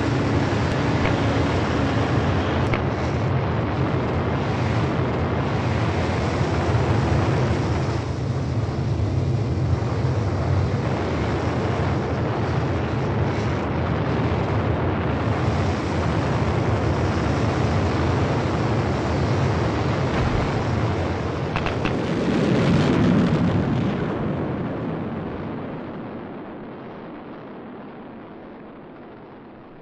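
Rocket thrusters of a sky crane descent stage firing in a steady rushing noise, with a few sharp ticks about 21 seconds in. The noise swells just after and then fades away steadily as the stage flies off.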